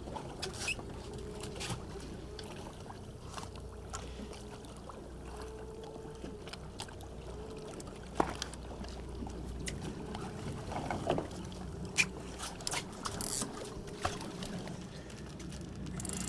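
Steady low hum of a boat's idling motors with wind and water noise, and scattered small clicks and taps as squid bait is handled and hooked on a fishing rig.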